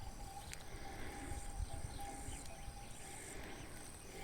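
Faint open-field ambience: insects buzzing in a high, steady band, with a faint steady hum and low rumble underneath.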